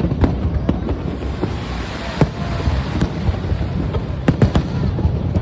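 Fireworks display: a steady low rumble of bursts with sharp bangs at irregular moments, the loudest about two seconds in and a cluster around four and a half seconds.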